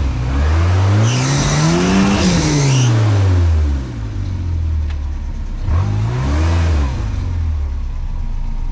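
Off-road rock crawler's engine revving up and back down twice, first a long climb and fall, then a shorter one, as it is driven at a rock obstacle. A rushing noise rides over the first rev.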